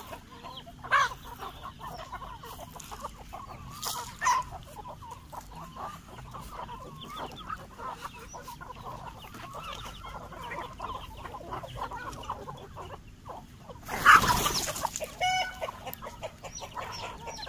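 A flock of country chickens (nattu kozhi) clucking as they feed, many short calls overlapping, with a few louder calls. About fourteen seconds in there is a brief loud burst of noise.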